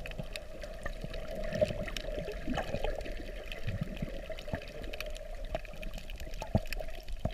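Muffled underwater sound of moving water, a steady wash with many faint scattered clicks.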